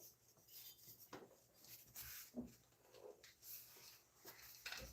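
Near silence with a few faint, scattered clicks and short scrapes of a bolt and tools being handled by hand at the AC compressor.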